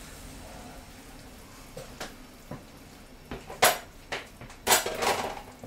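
Metal kitchen utensils clinking and clattering against a plate and frying pan: a few light clicks, then louder sharp clatters about three and a half and five seconds in, over a low steady background.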